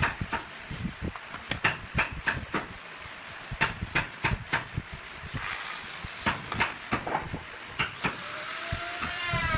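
Irregular wooden knocks and taps, about two or three a second, as wood pieces are handled and knocked together. Just before the end a power tool's motor starts with a rising whine.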